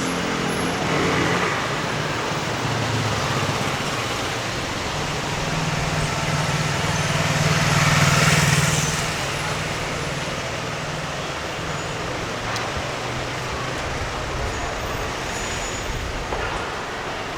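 Street traffic: motor vehicles running by with a steady engine hum, one passing louder and closer about eight seconds in.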